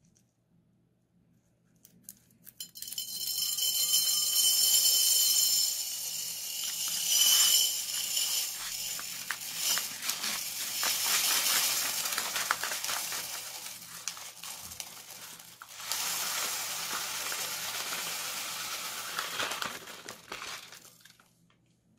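Small seed beads pouring out of a piping bag into a ceramic bowl: a dense, steady patter of tiny clicks and clinks. It starts a couple of seconds in, thins out about two-thirds of the way through, picks up again and tapers off near the end.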